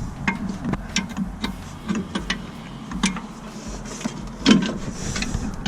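Irregular metallic clicks and knocks as the rear bolt of a new lower ball joint is handled and fitted into the front suspension, with a louder knock about four and a half seconds in.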